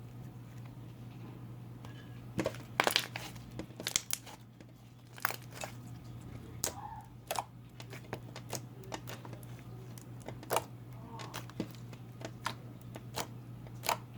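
Bubbly clear slime being squished and stretched by hand, giving irregular sharp clicks and pops as the trapped air bubbles burst, loudest in a cluster about three seconds in. A steady low hum runs underneath.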